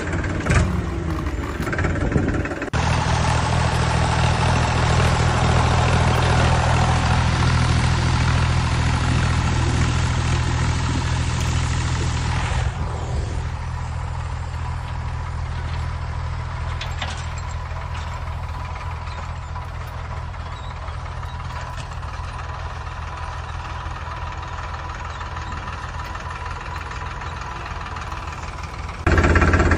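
An engine idling steadily with an even low hum. It starts abruptly about three seconds in, grows somewhat quieter about halfway through, and cuts off suddenly just before the end.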